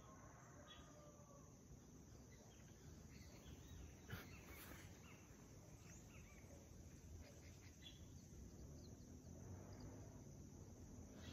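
Near silence of outdoor ambience with faint, scattered bird chirps and a soft tap about four seconds in.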